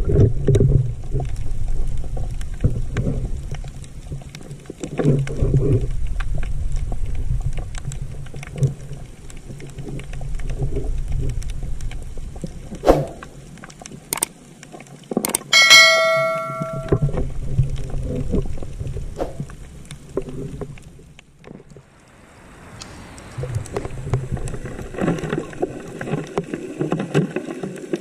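Underwater sound of a diver: exhaled air bubbles rumbling in bursts every few seconds, with scattered clicks and knocks. Near the middle comes a sharp metallic clank that rings for about a second, typical of the metal spear shaft striking something hard.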